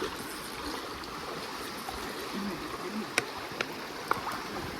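Steady splashing and lapping of lake water around a fishing boat, with three sharp clicks near the end.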